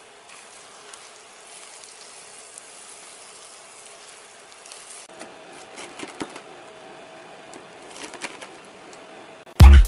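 Hot oil poured onto starch-coated corn kernels in a frying pan, sizzling steadily. About halfway through it changes to a knife chopping corn kernels on paper, with scattered light knocks and clicks, and loud music with a beat starts near the end.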